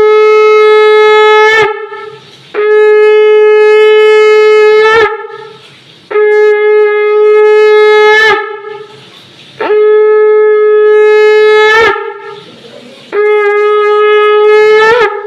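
Conch shell (shankh) blown in five long, steady blasts of about two seconds each, with short breaths between them. Each blast ends with a quick upward flip in pitch. This is the ritual conch blowing of a Hindu Bengali ceremony.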